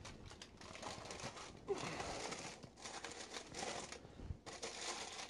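Parchment paper crinkling and rustling in irregular handling, with a sharper click about a second and a half in.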